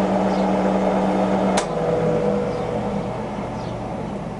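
Colchester Student 1800 lathe headstock running its spindle at 230 rpm with a steady gear hum. About one and a half seconds in there is a click, after which the hum changes pitch and slowly dies away.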